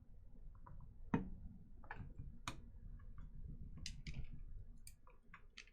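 Scattered small clicks and taps of a screwdriver and screws against the metal of a graphics card's heatsink while the spring-loaded screws are started, with one sharper click about a second in.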